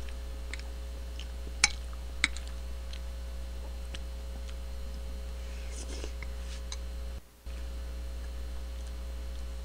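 Steady electrical mains hum with a few scattered sharp clicks, two louder ones about one and a half and two seconds in. The hum drops out for a moment about seven seconds in.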